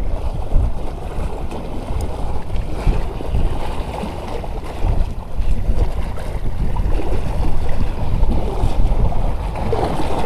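Wind buffeting the microphone, low and gusty, over the wash of choppy seawater.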